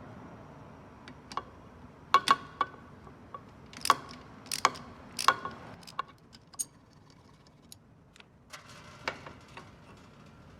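Irregular sharp metallic clicks and clinks, like hand tools and small metal parts knocking together during work on a motorcycle, thickest in the first half and thinning out near the end.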